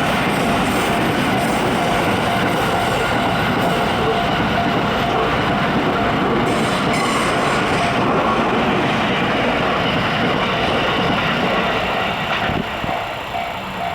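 JR 285 series sleeper electric train passing over a level crossing: a steady loud rumble and clatter of wheels on rail. The crossing's warning bell rings in evenly repeated strokes under it. The train noise eases about twelve seconds in.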